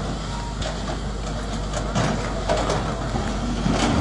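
Diesel engine of a SANY hydraulic excavator running steadily under load, with several sharp knocks and crashes of brick and masonry as its bucket breaks down a wall.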